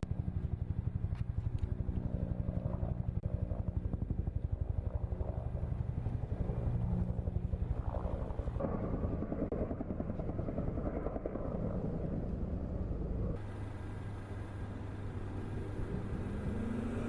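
Motor noise with a rapid, even pulsing, changing abruptly twice, about nine and thirteen seconds in.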